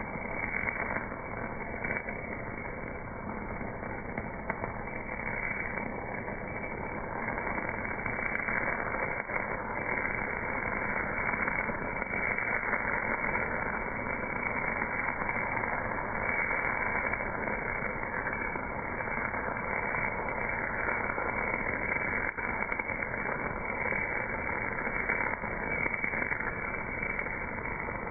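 MAG welding arc at 280 amps on a cast part, heard slowed down with the slow-motion footage: a steady, dull hiss and crackle with no high end.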